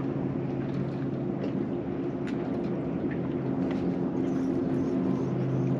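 Boat engine running steadily at low revs, a continuous low hum, with wind and water noise around it.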